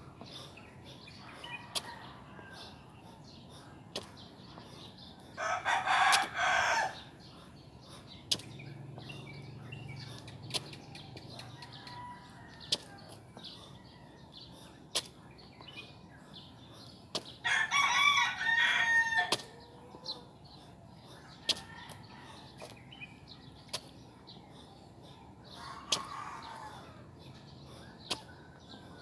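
A rooster crowing twice, each crow lasting about a second and a half to two seconds, about twelve seconds apart, with a fainter crow near the end. Short sharp clicks are scattered throughout.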